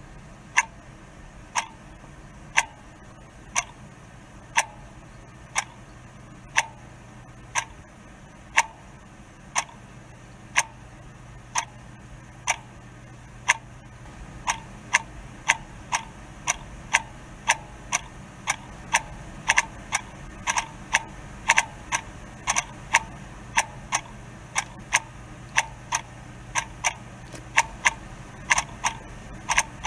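A clock ticking, about one tick a second; from about halfway through, a second ticking joins in, so the ticks come roughly twice as often. A low steady hum lies underneath.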